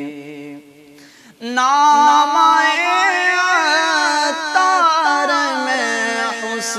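Male naat reciter singing unaccompanied. A held backing drone fades out in the first second, and about one and a half seconds in a long ornamented vocal line begins, its pitch wavering and turning as it is held.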